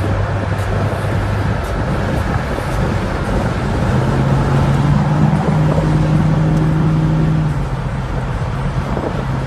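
A car driving: steady road noise with an engine hum. About four seconds in the hum rises in pitch and gets a little louder, then drops back a few seconds later.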